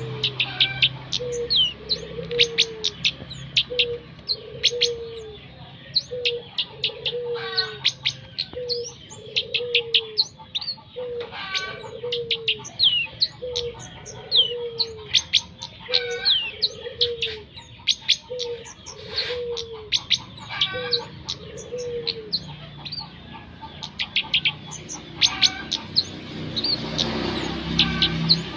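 Small songbird chirping continuously with quick, high, sharply falling notes. Beneath it, a lower falling note repeats about once a second and stops a little over twenty seconds in.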